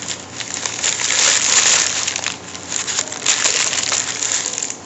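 Close-miked chewing of crunchy food: an irregular, loud crunching that swells and fades several times.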